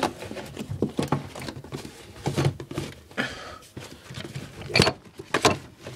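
Irregular clicks, knocks and rustling of detergent containers being handled at a front-loading washing machine, with two sharper knocks near the end.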